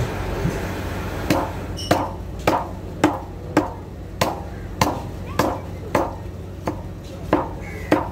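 A heavy cleaver striking a whole snapper on a wooden log chopping block, about a dozen sharp blows at a steady pace of roughly one every 0.6 s, starting about a second in.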